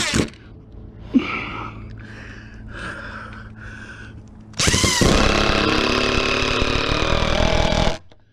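Power drill with a long bit boring through a lumber beam and post. A short run stops right at the start. About four and a half seconds in, the drill runs again for some three seconds, its motor pitch slowly dropping under load, then stops abruptly.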